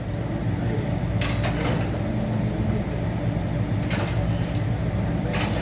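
Steady low rumble of restaurant background noise around a hibachi grill, with a few sharp clicks and faint voices.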